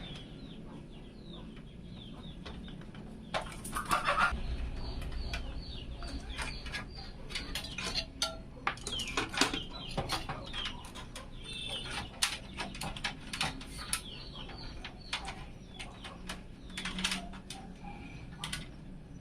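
Birds chirping and a chicken clucking, over many short clicks and light clatter.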